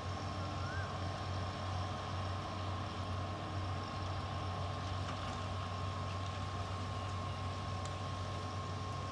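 Heavy diesel machinery running steadily: a constant low engine rumble with a steady high tone above it.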